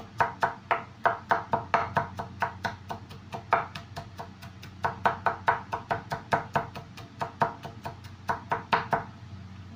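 Chef's knife mincing garlic on a wooden cutting board: rapid, even knocks of the blade on the board, about four or five a second, stopping shortly before the end.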